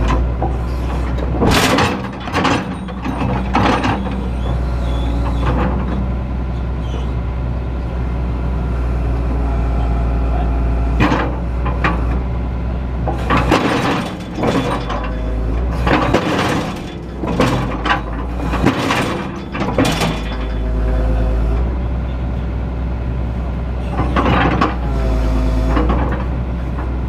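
Excavator's diesel engine running steadily, with several short bursts of clanking and hissing as the machine is worked, the engine note dipping briefly during some of them.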